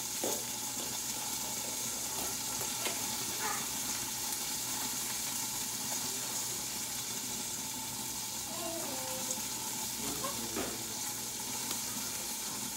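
Chicken breasts sizzling in oil in a covered frying pan: a steady frying hiss with a few faint pops.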